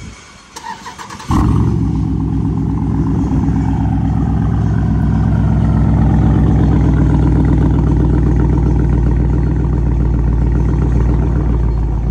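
Straight-piped Jeep Grand Cherokee SRT's 6.4-litre HEMI V8 cranking on the starter, then catching about a second in with a sudden loud start-up flare. It settles into a loud, steady, rumbling idle through an exhaust with no mufflers.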